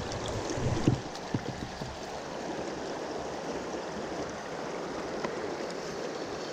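Fast river current rushing steadily over the rocks, with a few light knocks about a second in. The river is running fast after heavy rain.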